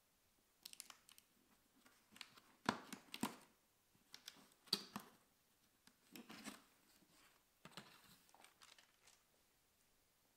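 Cardboard box being opened by hand: irregular scrapes, crackles and tearing of the cardboard flaps and tape, with the sharpest few in the middle.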